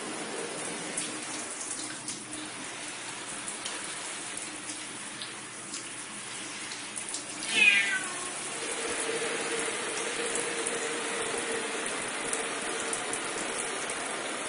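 Domestic cat meowing once, about halfway through: a short, loud call that falls in pitch. Under it runs a steady hiss.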